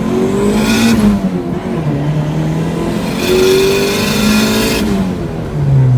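Turbocharged Honda D16Y8 four-cylinder revving up under hard acceleration, heard inside the car. It drops in pitch at a gear change about a second in, climbs again with a loud hiss over the top, and drops once more at a second shift near the end.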